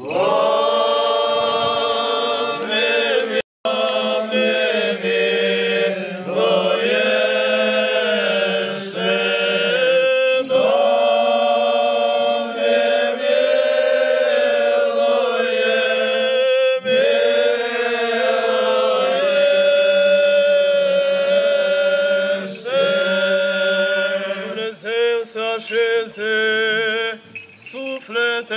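Eastern Orthodox liturgical chant for the dead, sung by voices as a slow melody over a steady held low drone note. A brief dropout cuts the sound about three and a half seconds in.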